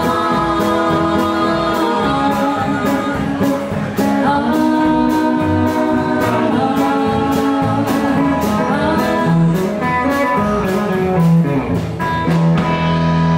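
Live blues band playing: electric and acoustic guitars, harmonica and a steady drum beat, with a singer. Near the end the drumming stops and a chord is held.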